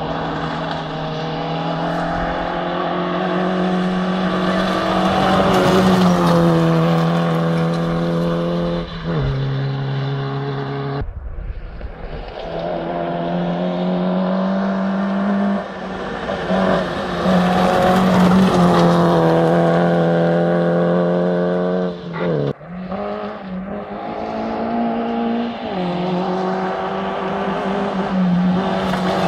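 Rally cars driving flat out on a gravel stage, engines at high revs, the pitch stepping down and climbing again through gear changes. The engine sound breaks off abruptly twice, at about 11 and 22 seconds, and picks up again.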